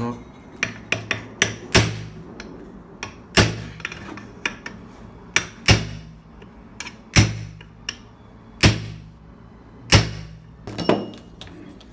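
Hammer striking an Easy washing machine's metal transmission housing to knock the bearing and casing loose. The blows come in repeated sharp strikes with a short ring, six heavy ones about every one and a half seconds, with lighter taps between.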